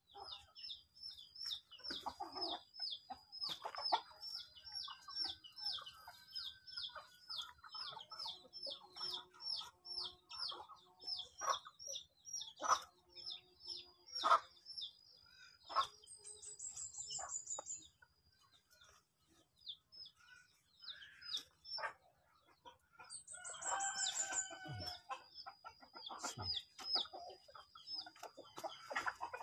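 Birds and poultry calling: a small bird repeats a short high chirp about three times a second, with quick descending trills now and then, while chickens call lower down. Scattered soft taps and rustles come from compost being handled by hand.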